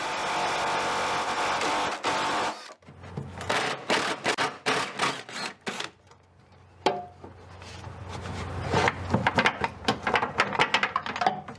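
A steady rushing noise that cuts off suddenly about two and a half seconds in, then a run of clicks and clanks from hand tools working on a car. The clicks come quick and rapid near the end.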